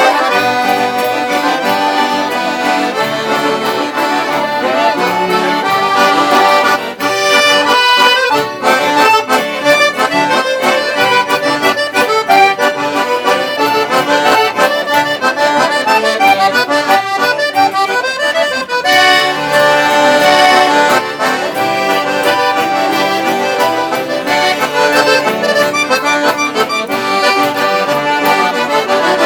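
Accordions playing a lively traditional gaúcho missioneira tune, with sustained chords and a pulsing rhythm. A busier run of short, detached notes comes in about seven seconds in and gives way to fuller held chords around nineteen seconds.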